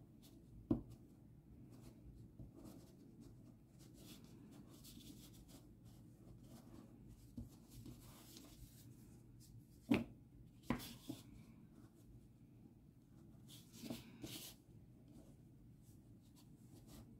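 Faint rustling of toy stuffing and yarn being pushed into a crocheted body by hand and with a thin stick. A few soft knocks come through, the sharpest about a second in and around ten seconds in, over a low steady hum.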